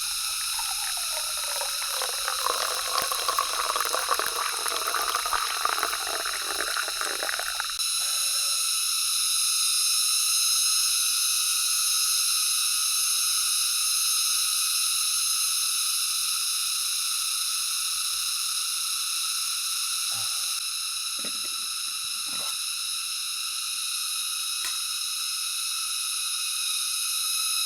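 Hot water poured into a cup to make coffee, a steady pour whose pitch shifts as the cup fills and that stops suddenly about eight seconds in. A steady high-pitched drone runs throughout, with a few faint knocks later.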